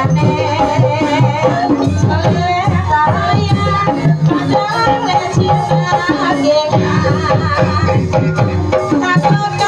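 Live Banyumasan gamelan music accompanying an ebeg horse dance: kendang hand drums beating a steady rhythm under layered pitched melody lines.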